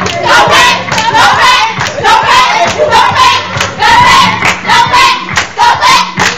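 A group of people clapping in a steady rhythm while singing and shouting along, loud throughout.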